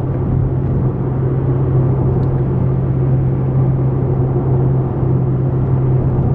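A car driving at a steady speed, heard from inside the cabin: a steady low engine hum over tyre and road noise.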